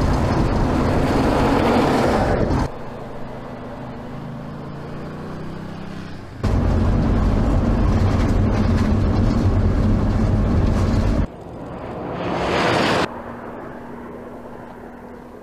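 Bugatti Veyron's engine running hard as the car slides and accelerates across loose dirt, heard in several spliced clips that cut abruptly between loud close passages and quieter, more distant stretches. About 11 s in, a rising pitch of the car accelerating comes in; near the end there is a quieter steady engine tone.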